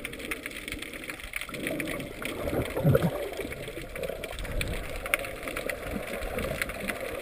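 Underwater sound through a submerged camera: muffled water movement and gurgling, with a swell about three seconds in, and faint crackling ticks throughout.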